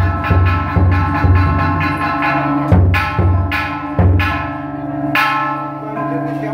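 Large bronze temple bell struck several times, each stroke ringing on. Under it runs a steady beat of low drum strokes, about two a second, which stops about four seconds in.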